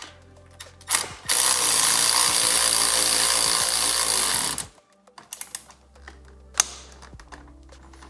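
Power ratchet running for about three and a half seconds as it tightens a motorcycle handlebar riser clamp bolt, then stopping abruptly; a few light clicks follow.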